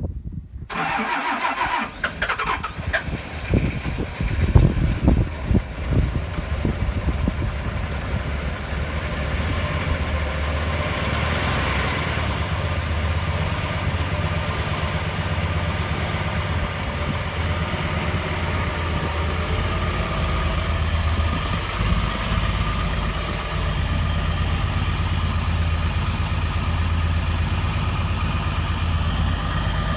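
Dodge Ram 3500 pickup's engine started cold: it is cranked and catches within the first few seconds, runs unevenly for a moment, then settles into a steady idle.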